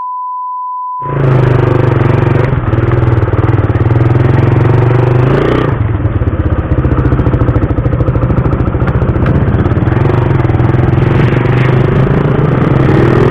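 A steady high beep lasting about a second, then a Suzuki Raider 150's single-cylinder four-stroke engine running steadily as the motorcycle is ridden.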